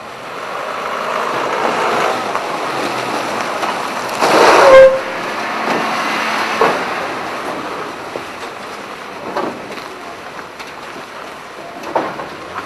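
Military truck engine running and driving past, with a louder rush about four seconds in and a few sharp knocks later.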